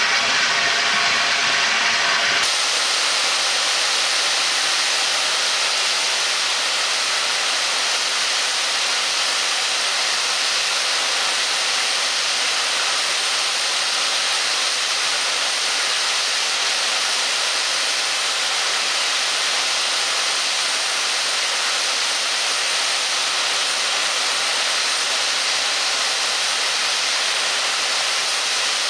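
Steam hissing steadily and loudly from LNER Peppercorn A1 Pacific 60163 Tornado as it stands, an even rushing hiss that sets in abruptly a couple of seconds in.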